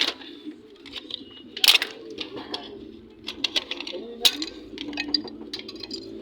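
Sharp metal clicks and knocks, with a run of small ticks in the second half, as hand tools work on a car's distributor while it is taken apart. Pigeons coo steadily in the background.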